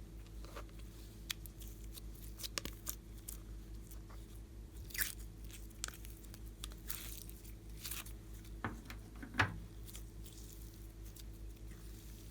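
Slime being worked by hand: scattered crunchy clicks and short squelchy swishes, the sharpest crackle about nine seconds in, over a steady low electrical hum.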